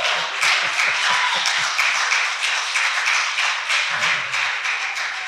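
Congregation clapping and applauding, the claps falling into a steady rhythm.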